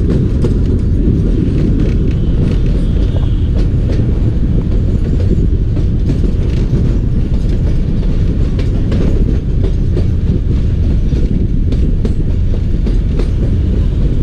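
Passenger train coaches rolling along the track, heard from an open window: a steady deep rumble of wheels on rails with scattered faint clicks over the rail joints.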